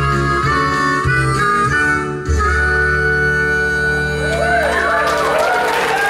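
Three diatonic harmonicas playing a tune together in close harmony, landing on a long held chord a couple of seconds in. Audience applause and cheering break out over the fading chord during the last second or two.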